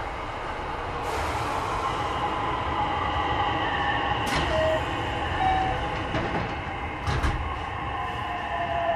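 Running sound inside a JR West 207 series 1000-subseries electric train's motor car: motor whine slowly falling in pitch as the train slows, over steady wheel-and-rail rumble. A sharp clack is heard about four seconds in and another about seven seconds in.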